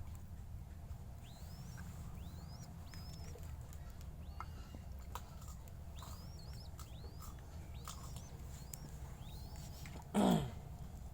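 Baby spotted dove squeaking to beg for food: a run of short, high squeaks that sweep upward in pitch, about one a second, some in quick pairs. About ten seconds in there is one brief, loud noise.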